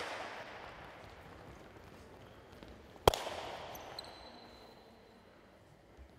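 A loud sharp bang about three seconds in, echoing away over a second or two, while the echo of a similar bang is dying out at the start. A thin high tone starts about a second after the bang and lasts over a second.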